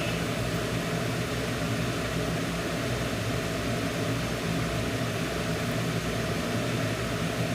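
A steady low machine hum under an even hiss, unchanging throughout.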